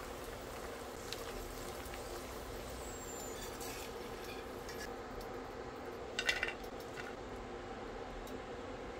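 Cashews, almonds and raisins frying gently in a pot, a soft steady sizzle, with a few clinks of a metal slotted spoon against the enamel pot, the loudest cluster about six seconds in.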